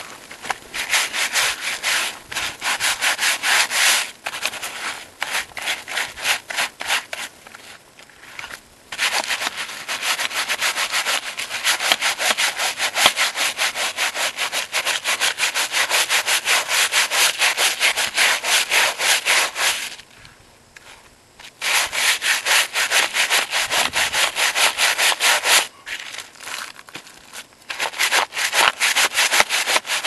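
Stiff-bristled hand scrub brush scrubbing wet, degreaser-lathered seat belt webbing in rapid back-and-forth strokes, pausing briefly twice.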